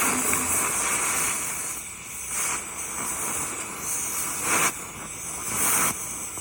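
Cutting torch hissing steadily as it cuts through the welds on a steel loader-bucket brace, with the hiss surging louder a few times.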